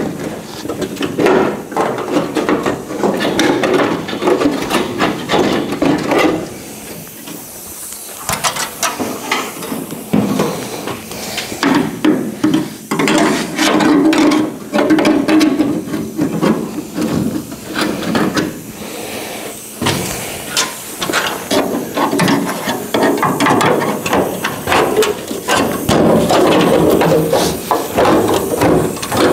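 Pneumatic cutting tool running in stop-start bursts as it cuts through the sheet-steel rear wheelhouse and quarter panel, with a hiss of air. The cutting eases off about seven seconds in and picks up again a few seconds later.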